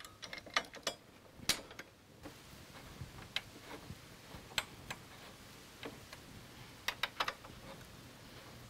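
Faint, uneven metallic clicks and ticks of a hex key turning a bolt into a motorcycle luggage-rack mount, the tool tapping on the steel. The loudest click comes about a second and a half in, and a quick run of three comes near the end.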